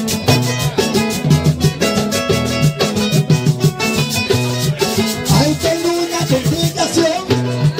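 Live merengue played on acoustic guitars over a low bass line and a steady percussion beat.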